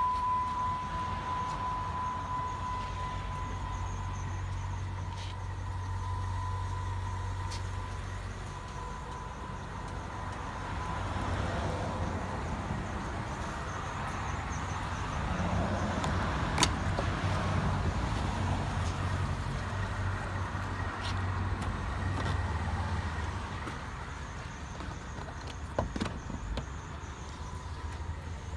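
Supercharged 3.8-litre V6 of a 2011 Jeep Wrangler idling with a steady low hum. A thin high tone sounds over it for the first several seconds and fades out. A sharp click comes about 16 seconds in, and a few more clicks come near the end.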